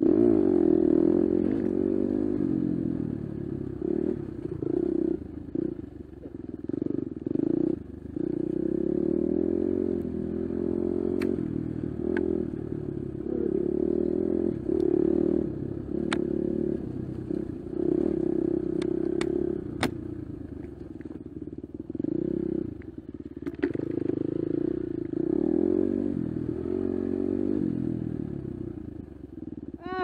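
Four-stroke single-cylinder enduro dirt bike engine revving up and down as it climbs a rocky trail, heard close to the bike, with scattered sharp clicks and clatter.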